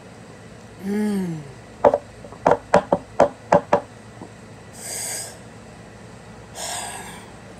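A short voiced groan that rises and then falls in pitch, followed by a quick run of about seven sharp knocks and then two forceful breaths blown out through the mouth, a person trying to cool a mouth burning from extra-spicy ramen.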